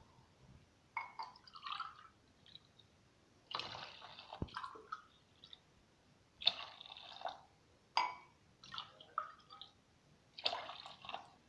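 Water poured from a mug into a plastic box of spiced green paste, splashing in several separate pours of about a second each as cup after cup goes in: about a litre of water being added to make spicy pani puri water.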